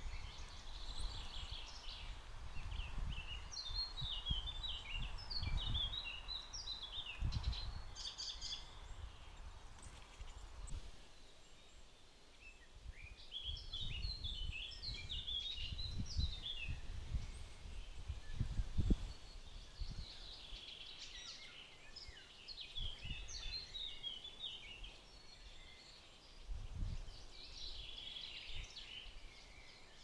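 Small songbirds at a feeder chirping in quick clusters of short, high notes, in several bouts. Irregular low rumbles and thuds run underneath.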